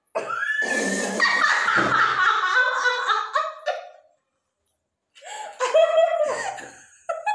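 Young women laughing hard and loudly in two bursts, with a pause of about a second between them.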